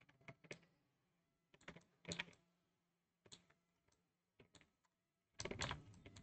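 Scattered clicks of a computer keyboard and mouse, coming singly and in short clusters, with the loudest cluster near the end.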